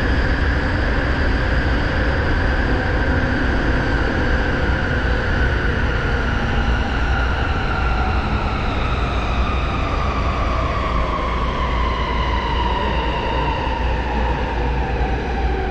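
Electric commuter train heard from inside the carriage: a steady heavy rumble of running, with a motor whine that falls slowly in pitch.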